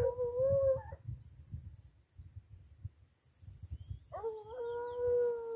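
Hunting hound howling in two long, steady bays, a short one at the start and a longer one about four seconds in: a paca dog baying at the rocks where it is trying to corner a paca.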